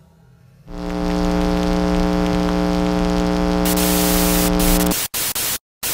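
Glitch sound effect for a channel logo: a steady electronic buzz with hiss starts about a second in and cuts off abruptly. It gives way to television-style white-noise static that drops out briefly a couple of times.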